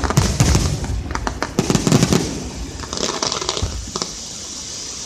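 Aerial fireworks bursting: a quick series of booms and sharp bangs over the first two seconds, then crackling that fades away toward the end.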